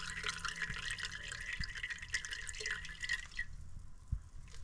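Coolant pouring and trickling out of a removed heater core into a container, stopping about three and a half seconds in.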